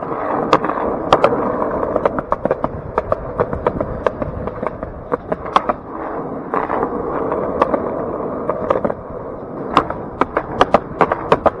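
Skateboard wheels rolling on a concrete sidewalk, a steady rolling rumble broken by sharp clacks as the wheels cross the joints and cracks between slabs, the clacks coming more often near the end.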